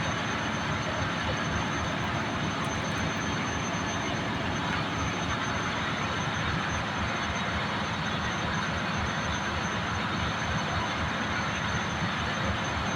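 Ship's engine-room machinery running: a steady, unbroken din of engines and fans with a faint high whine over it.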